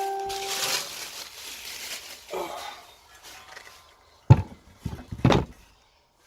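Handling noise while unpacking a box of car parts: a metal part rings and fades within the first second, followed by rustling and then a few sharp knocks from about four to five and a half seconds in.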